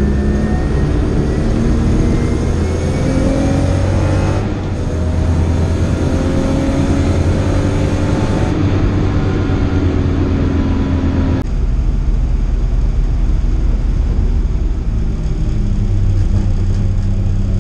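BMW E30 325i's straight-six engine heard from inside the cabin, rising in pitch under acceleration with a break about four seconds in as a gear is changed, then rising again and holding steady. About eleven and a half seconds in the note drops abruptly to a low steady drone as the car lifts off and slows.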